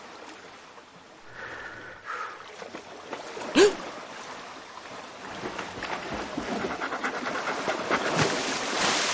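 Cartoon sound effects of water splashing as a character wades into the sea, growing louder over the last few seconds, with a single sharp sound effect about three and a half seconds in.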